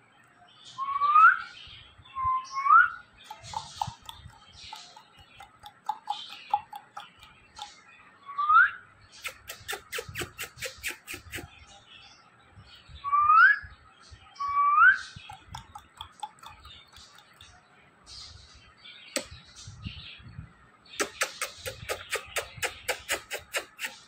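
Short rising whistles, five in all, and two long runs of rapid clicking, traded between a man and his Indian ringneck parakeet.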